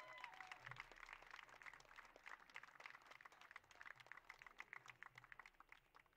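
Faint, scattered applause, many separate hand claps from a small crowd, dying away right at the end.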